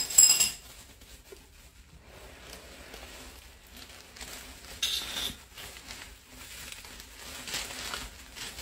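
Bubble wrap and plastic packing rustling and crinkling as wrapped items are handled in a cardboard box, with a sharp crackle just after the start and another about five seconds in.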